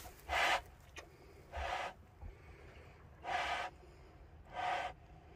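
A sow in labour grunting in a steady rhythm, four short grunts about a second and a half apart, while a piglet is being born.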